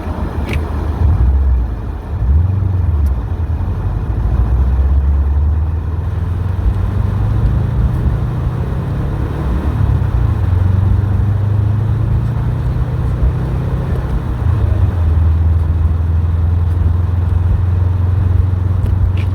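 Subaru WRX STI's turbocharged flat-four engine running under way. The engine note climbs over several seconds, then drops about three-quarters of the way through, as under acceleration and a gear change.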